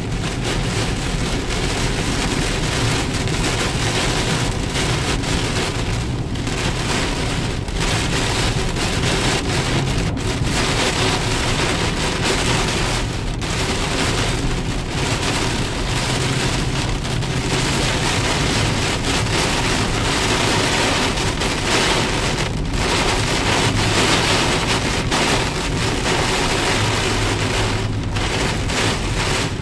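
Heavy rain hitting a car's roof and windscreen, heard from inside the moving car, over a steady low hum of engine and tyres.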